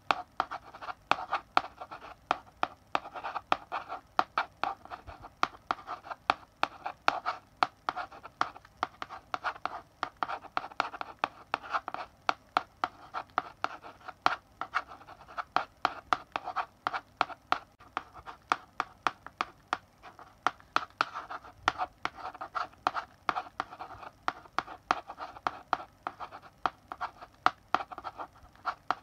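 Chalk writing on a blackboard: several sharp taps a second as the chalk strikes the board, with short scratchy strokes between them that come in bunches as characters are written.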